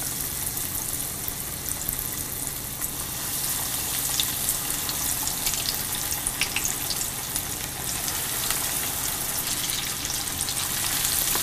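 Breaded chicken pieces deep-frying in hot oil: a steady sizzle with scattered crackles and pops.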